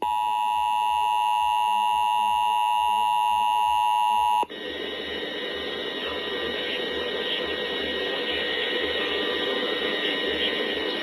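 Emergency Alert System attention signal, the steady two-tone alert (853 and 960 Hz) of a required monthly test, for about four and a half seconds, cutting off abruptly. A steady hiss follows.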